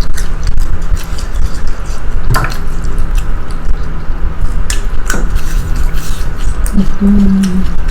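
Close-miked eating sounds: wet chewing and squishing of food, with a few sharp clicks of utensils on dishes. Near the end there is a brief hummed 'mm' from one of the eaters.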